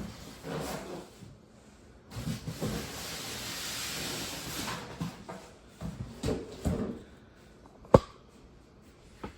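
Packaging being rummaged through by hand: rustling and scraping of cardboard and styrofoam with scattered knocks, then one sharp knock about eight seconds in and a lighter one just after.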